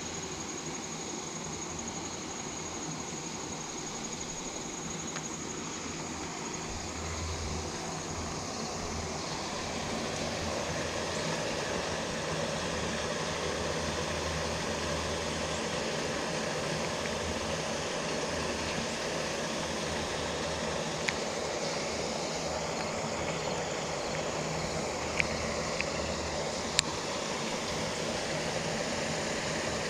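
Steady outdoor background rumble with a low hum, growing a little louder about seven seconds in. A faint high steady tone fades out around ten seconds in, and a few small clicks come near the end.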